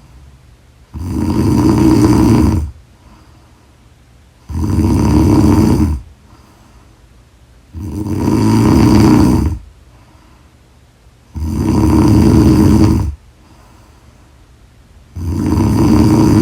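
A woman snoring loudly in her sleep: five long snores, one about every three and a half seconds, with quiet breathing in the gaps. The last snore is still going at the end.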